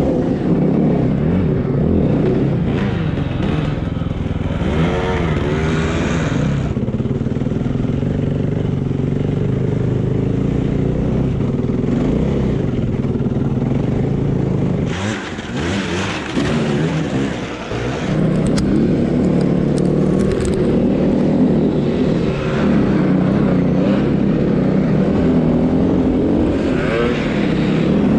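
Snowbike's motorcycle engine running under varying throttle as it is ridden, its pitch rising and falling with the revs. About halfway through it eases off for a couple of seconds before picking up again.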